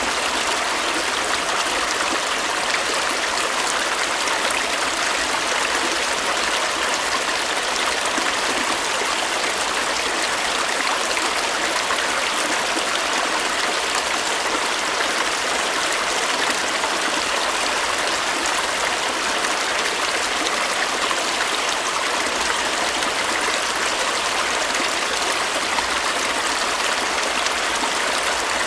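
Stream water flowing steadily over rocks, a continuous rushing and trickling.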